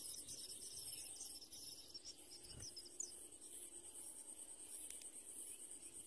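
Faint outdoor ambience: a steady, high-pitched insect trill with scattered short high chirps, and a single soft click about halfway through.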